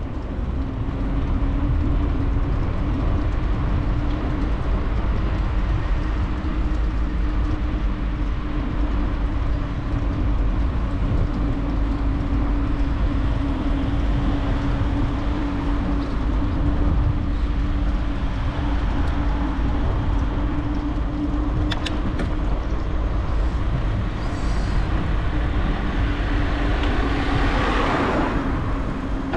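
Wind buffeting the microphone of a camera on a moving bicycle, with tyre rumble on asphalt and a steady low hum, and a short swell of hissing noise near the end.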